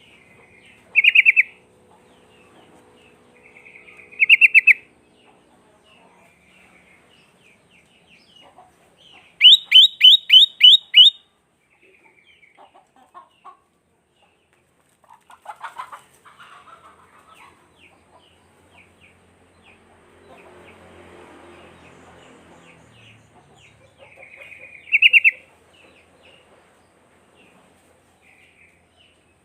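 Sooty-headed bulbul singing in short bright phrases, with a quick run of six loud notes about ten seconds in and softer chattering between.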